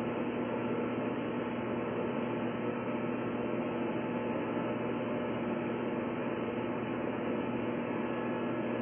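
Steady machine hum with an even hiss, unchanging in pitch and level, like the drone of a room full of running machinery.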